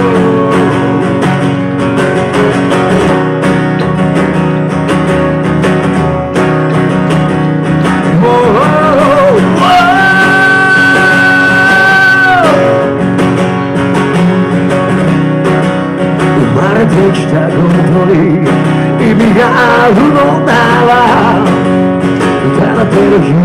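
Live acoustic rock ballad: strummed acoustic guitar and electric bass, with the singer's voice holding one long note about ten seconds in and singing again near the end.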